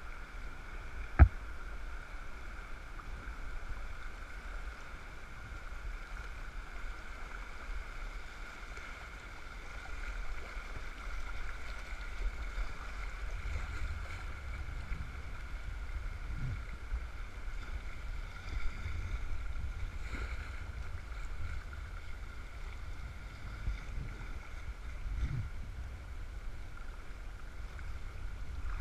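River rapid water rushing and slapping around a kayak's hull as it runs down a rapid, with a low rumble of wind on the microphone that grows heavier in the second half. A single sharp knock about a second in is the loudest sound, with a few softer thumps later.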